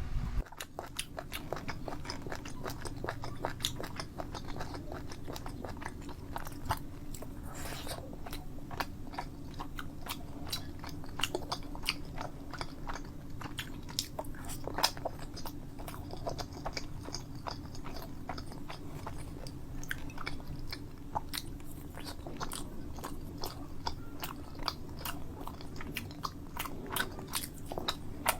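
Close-miked eating: chewing and biting food, with many small irregular clicks and crunches.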